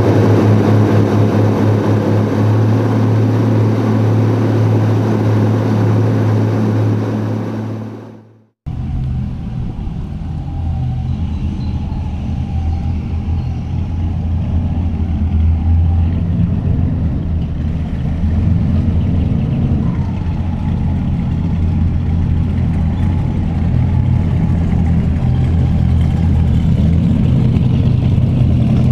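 Riva Aquarama's twin Lamborghini V12 engines running at speed, a loud steady drone heard over the open engine bay, which fades out about eight seconds in. After a brief gap, a lower, unsteady engine sound follows: an engine idling close by.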